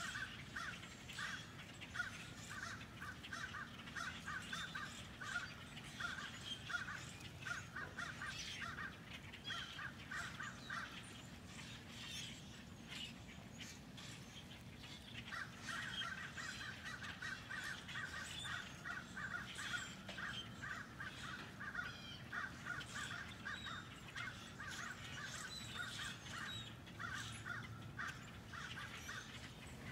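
A large flock of blackbirds calling at once: a dense, continuous chatter of many overlapping calls. It thins out for a few seconds around the middle, then picks up again.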